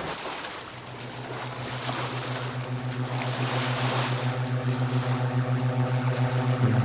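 A low, pulsing synthesizer drone of the film score fades in about a second in and grows louder, stepping down to a lower, heavier note near the end, over a wash of water noise.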